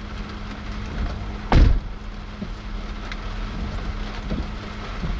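Low, steady hum of an idling vehicle heard from inside the cab, with one heavy thump about one and a half seconds in and a few light knocks after it.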